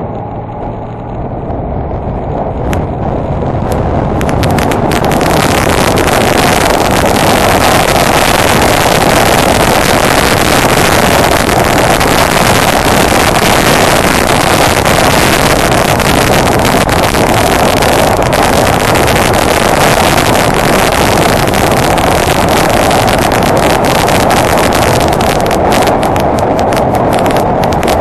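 Honda Deauville NT650V motorcycle under way, its V-twin engine running under a loud, steady rush of riding noise with crackling buffets on the microphone. It grows louder over the first few seconds as the bike picks up speed, then holds steady.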